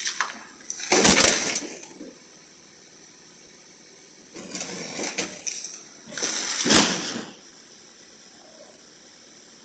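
Three loud bursts of crunching, clattering noise from a car colliding with parked cars: about a second in, about four and a half seconds in, and just after six seconds. Heard through a Ring doorbell camera's microphone.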